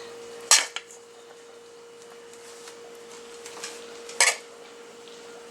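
A serving utensil knocking and scraping against the lasagna dish while cooked ground beef is spooned on as a layer: two sharper knocks, about half a second in and about four seconds in, with light clicks between.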